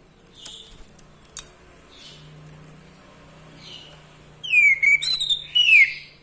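Orange-headed thrush (anis merah) singing: a few soft short calls, then, from about four and a half seconds in, a loud burst of whistled phrases with falling notes and thin high trills.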